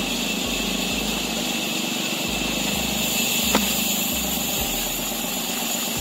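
Two axes chopping along a log to split it lengthwise, mostly as dull low thuds with one sharp chop about three and a half seconds in, over a steady motor hum and hiss.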